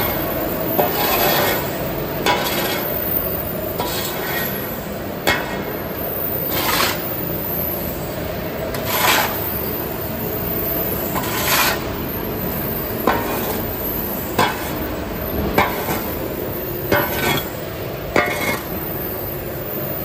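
A steel shovel scraping along a concrete floor and scooping charred wood-chip biochar, with repeated scrapes and crunches every second or two, some longer and drawn out, over the steady noise of machinery.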